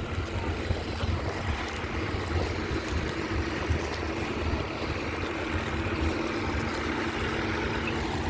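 Tractor engines running steadily in a ploughing field, a low hum with one held tone, with wind rushing over the microphone.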